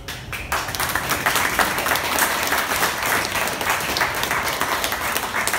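Audience applauding, starting suddenly and then keeping up a steady clapping.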